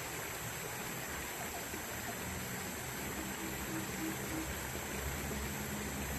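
Shallow river water running over rapids, a steady rushing hiss.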